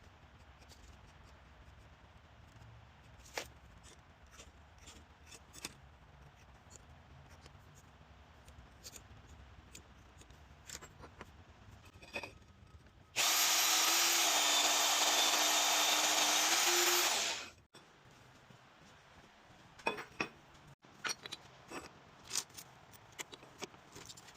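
A power tool runs loudly and steadily for about four seconds midway, cutting off sharply. Before and after it are scattered light clicks and knocks of metal parts being handled.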